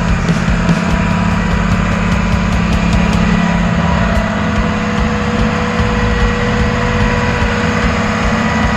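Porsche 911 3.2 air-cooled flat-six engine idling steadily.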